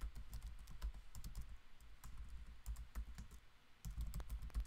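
Typing on a computer keyboard: a quick, uneven run of key clicks as commands are entered, with a short lull about three and a half seconds in.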